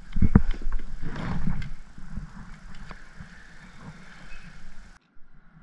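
Several sharp knocks, then a scraping rustle and lighter clicks of gear being handled in a kayak. The sound cuts out abruptly about five seconds in.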